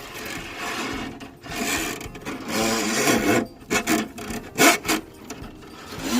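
Steel drain-snake cable scraping and rasping as it is pushed by hand into a Milwaukee Switch Pack drum, which turns and winds the cable up as it is fed. It comes in uneven strokes of varying length.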